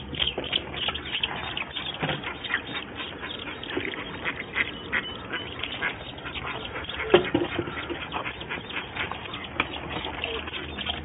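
Ducklings peeping over and over in a storm drain, many short high cheeps overlapping. A single knock sounds about seven seconds in.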